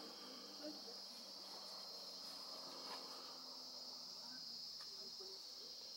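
Faint, steady chorus of night insects such as crickets: a continuous high trill that does not break or change.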